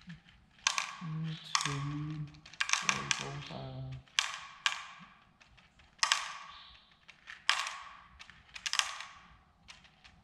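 Seeds dropping from a packet into a plastic cup, each drop landing as a short sharp click or rattle, about a dozen times. A man's low voice mutters between about one and four seconds in.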